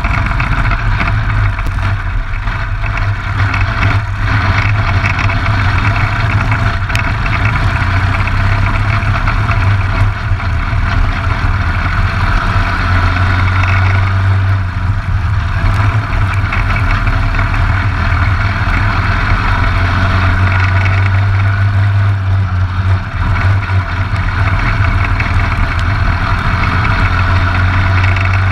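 Briggs & Stratton LO206 single-cylinder four-stroke kart engine running loud and fairly steady, close up from the kart's front fairing.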